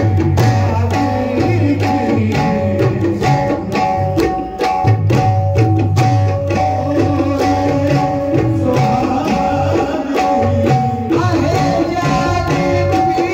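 Qawwali ensemble playing: tabla drumming under steady held melody notes.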